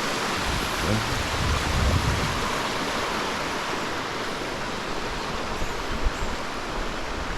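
Water of the Telaga Tujuh waterfall rushing and splashing over the rocks, a steady even rush.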